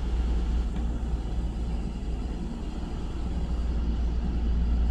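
Steady low rumble and hum of a standing Hankyu 9300 series electric train, heard from inside the car while it waits at a station platform.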